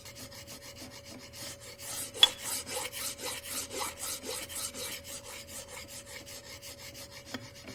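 Hand file being stroked back and forth across the metal mounting face of a helicopter secondary-shaft bearing housing, about three to four rasping strokes a second, louder in the middle and fading toward the end, to correct the face's angle. A faint steady hum lies underneath.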